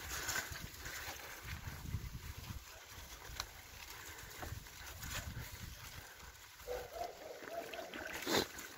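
Bicycle rolling over a rutted road of mud and slush: an uneven low rumble with scattered knocks and rattles, the sharpest just before the end. A short pitched sound is heard in the background about seven seconds in.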